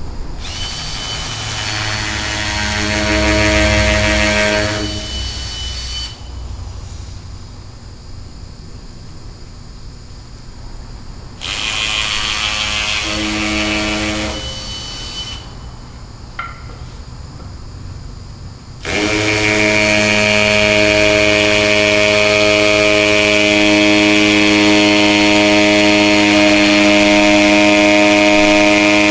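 Handheld power drill boring into a brick masonry wall to fix a wooden support board: a run of several seconds, a shorter run after a pause, then steady continuous drilling from about two-thirds of the way in.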